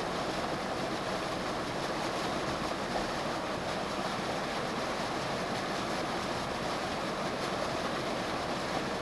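Steady rushing of river water, an even noise without pauses that cuts off at the end.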